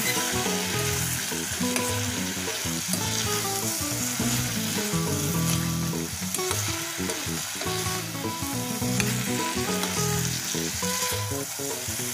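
Green papaya slices, tomato, garlic and onion sautéing in a stainless steel pot, sizzling steadily as a metal spoon stirs them, with light clinks of the spoon against the pot.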